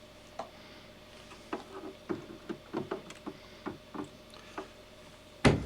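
Irregular small clicks and taps of hard plastic pump parts and screws being handled during reassembly of the spa pump, with one louder thump near the end.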